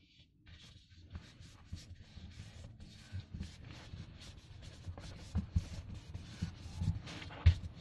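A hand rubbing and pressing an eggshell sticker flat onto a board, smoothing it down. The rubbing is steady, with several sharp taps in the second half and the loudest near the end.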